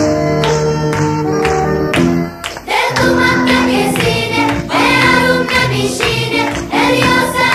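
Background music: an instrumental passage, then singing coming in about three seconds in.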